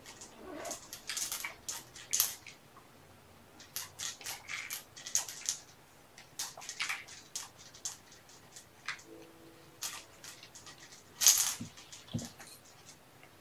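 Handling noises: a string of short scrapes, rustles and clicks at irregular intervals, loudest in a cluster about eleven seconds in.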